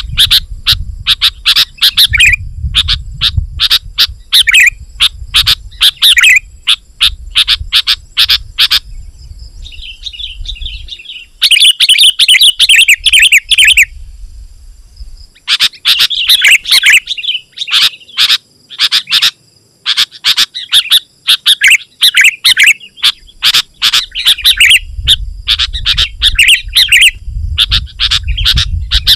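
Sooty-headed bulbul (kutilang) singing busily: rapid runs of short, loud chattering notes with a few brief pauses, and one longer run of continuous warbling about twelve seconds in.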